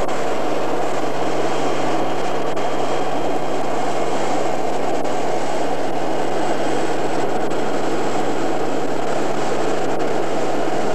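Steady, loud cabin noise of an aircraft in flight, a dense, unchanging rush with a constant low hum running under it.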